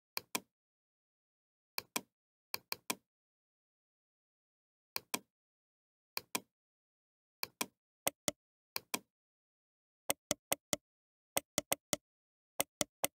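Computer mouse button clicking, mostly in quick press-and-release pairs, about a dozen times and faster near the end.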